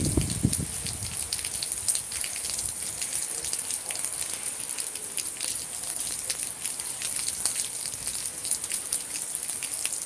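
Steady rain falling: a constant hiss with a dense patter of drops striking nearby surfaces.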